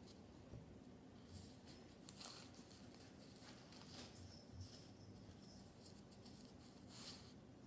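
Faint, soft rustling of tissue-paper wrapping and fluffy padding being unwrapped by hand, in a few brief scratchy rustles over near-quiet room tone.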